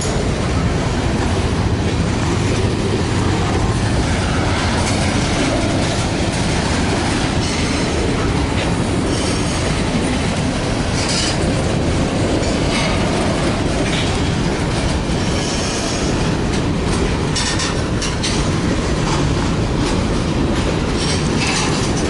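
Freight train of covered hopper cars rolling past: a steady rumble and clatter of steel wheels over the rails, with high-pitched wheel squeal now and then.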